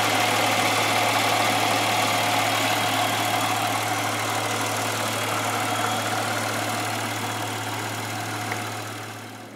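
2007 Buick Lucerne's engine idling steadily with its repaired wiring harness in place, an even hum with no change in speed. It fades out near the end.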